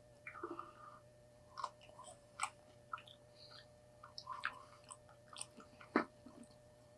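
Close-up chewing and mouth sounds of someone eating a burger and French fries: soft wet smacks and clicks scattered irregularly, with one sharper click about six seconds in.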